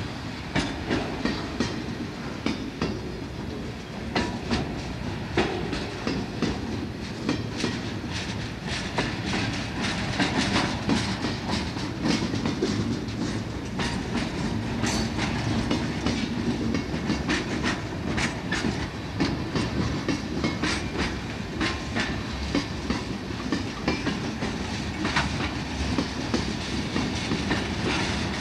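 Freight train's cars rolling past, steel wheels clacking over rail joints in a steady run of repeated clicks over the rolling rumble.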